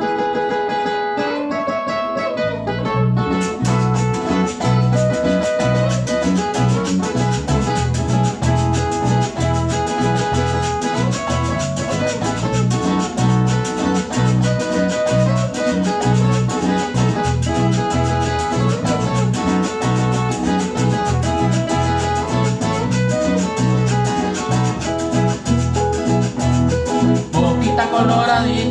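Instrumental introduction of a Colombian música parrandera song, played live on acoustic guitars and a five-string electric bass. A steady, even bass pattern runs under a picked melody line, with no singing yet.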